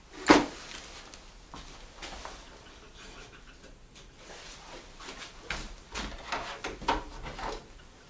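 A sharp knock about a third of a second in, then scattered light knocks and rustling from things being handled at a work table, busier near the end.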